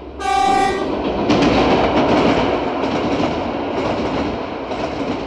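Subway train sounding its horn briefly, then rumbling past on the rails with a steady, dense noise.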